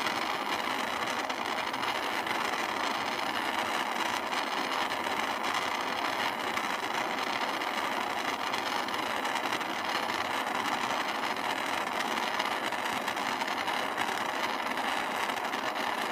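Gas torch flame burning steadily with a constant hiss, firing vitreous enamel on a copper piece from below.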